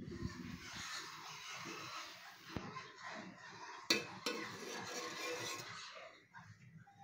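A metal spoon scraping and stirring cooked rice in an aluminium kadai, with two sharp clinks of the spoon against the pan about four seconds in.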